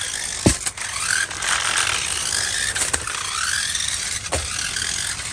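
Remote-control toy monster truck driving, its small electric motor and plastic gearbox whirring loudly, the whine rising and falling in pitch as it speeds up and slows. Three sharp knocks come through: about half a second in, around three seconds, and a little after four seconds.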